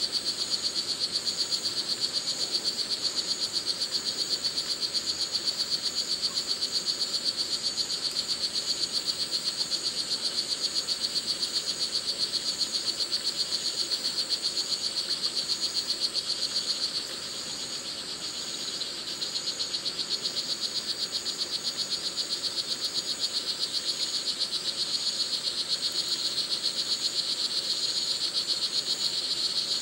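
Male red-throated frog calling for a mate: a fast, steady, high-pitched pulsing trill that runs on without a break, weakens for a couple of seconds a little past the middle, then comes back. A second, higher pulsing chirp runs along above it.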